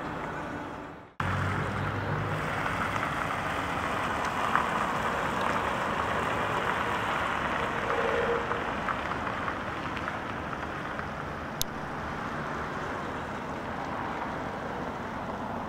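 Steady outdoor background noise, an even hiss and rumble with no voices. The sound cuts out for a moment about a second in, and a single sharp click comes a few seconds before the end.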